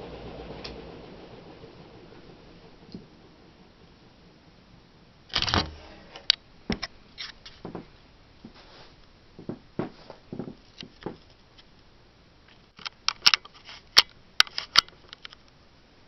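Seagull Lighting Main Street ceiling fan with wooden blades running, its whir fading away over the first couple of seconds as it winds down. Scattered clicks and knocks follow: a louder thump about five seconds in and a cluster of sharp clicks near the end.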